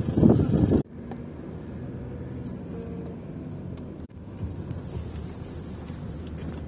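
Car driving, heard as steady engine and road noise. It opens with about a second of loud, rough noise that cuts off abruptly.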